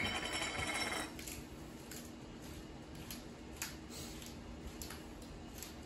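Hand-twisted pepper mill grinding peppercorns: a denser rasp for about the first second, then faint, irregular grinding clicks.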